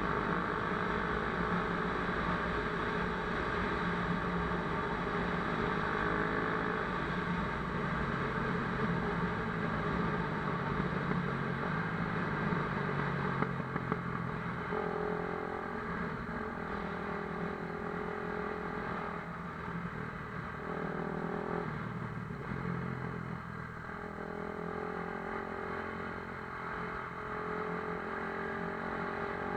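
Dirt bike engine running, its pitch rising and falling as the throttle opens and closes, with a few sharp knocks about 14 seconds in.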